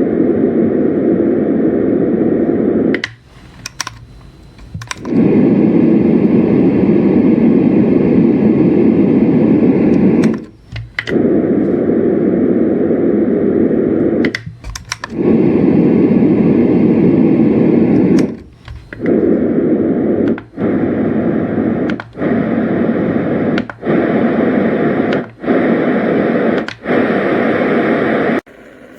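LectroFan Evo white noise machine playing a steady, loud rushing noise that stops with a click and a short break about ten times, as it is switched from one setting to the next; the changes come faster in the second half.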